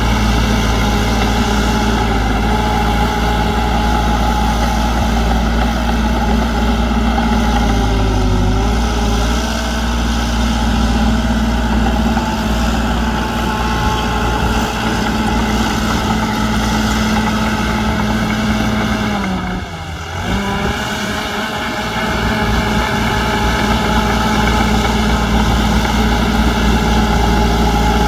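Heavy earthmoving machine's diesel engine running steadily and loudly. About two-thirds of the way through it briefly drops in pitch and level, then picks back up.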